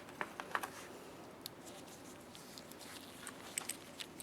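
Faint, scattered small clicks and taps of screws and a Phillips screwdriver being handled and fitted into a small metal lamp assembly, a few at a time with short gaps between.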